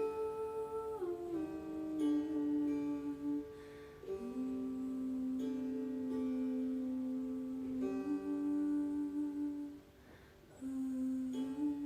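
Meditative music: a voice humming long held notes that slide down from one pitch to the next, over plucked string notes. It breaks off briefly near the end before a new note starts.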